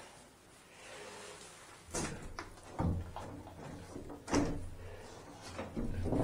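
A bathroom ceiling access panel being pushed up and shifted aside by hand: a few sharp knocks and scrapes of the panel against its frame.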